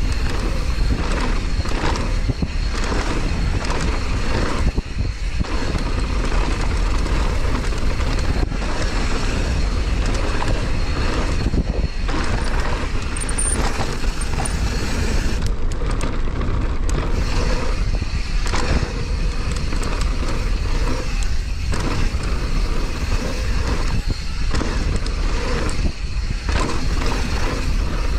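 Downhill mountain bike running fast down a rough trail: a continuous rushing noise of tyres and air, with frequent rattles and knocks as the bike goes over the bumps.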